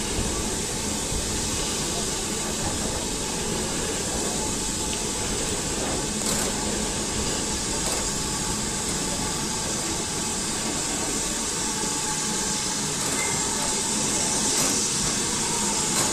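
Steam locomotive running slowly, a steady hiss of steam over the low rumble of the train on the rails.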